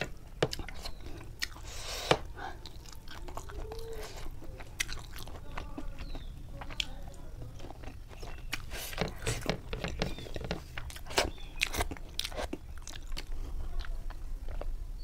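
Chewing and smacking of someone eating a mouthful of rice by hand, with many short wet mouth clicks.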